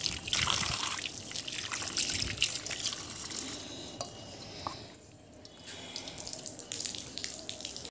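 Water splashing and dripping as mangoes are washed by hand in a perforated aluminium bowl, lifted out and dropped back in. It eases off briefly about five seconds in, then the splashing resumes.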